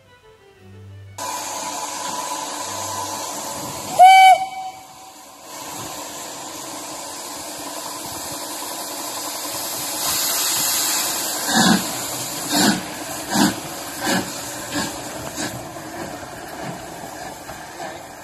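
LMS 4F 0-6-0 steam locomotive 43924 hissing steam, giving one short whistle blast about four seconds in. Later it pulls away with slow, evenly spaced exhaust chuffs, about one every 0.7 seconds.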